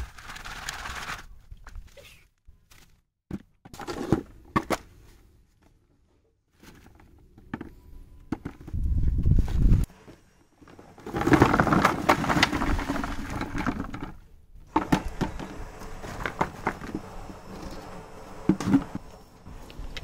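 Loose garden soil pouring from a plastic basin and being handled, with knocks and rustling in several bouts. A low rumble comes about halfway through.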